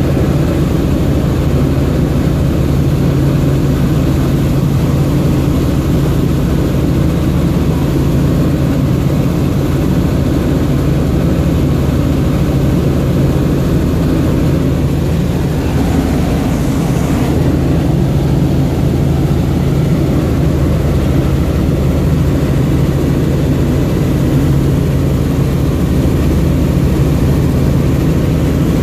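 Helicopter in flight heard from inside the cabin: a steady, loud drone of rotor and engine with a constant low hum.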